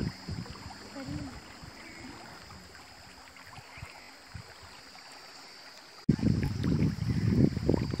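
Open-air ambience with a steady high hiss and a few quiet words near the start. After an abrupt cut about six seconds in, loud, uneven low rumbling of wind on the microphone.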